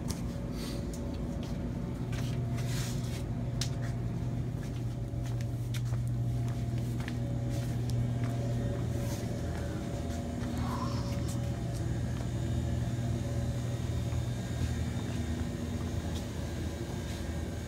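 A steady low hum and rumble, with a few faint clicks scattered through it.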